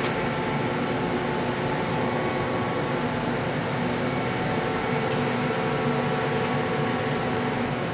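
A steady mechanical hum, an even noise with a few faint held tones, like running machinery or a fan.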